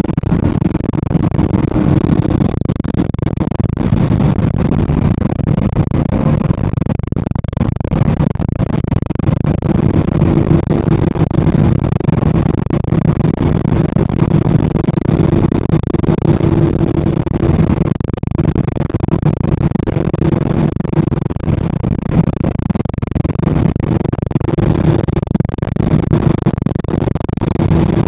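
City bus engine and road noise during the ride: a steady drone, with a hum that grows clearer about ten seconds in.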